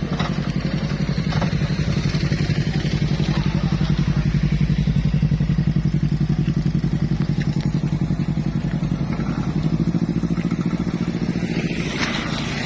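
A motor vehicle's engine running steadily under load as it pulls up a steep hill, growing louder toward the middle and easing off near the end.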